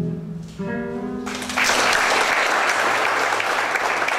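Acoustic guitar closing the piece with a plucked chord that rings on, then audience applause breaking out after about a second and carrying on, louder than the guitar.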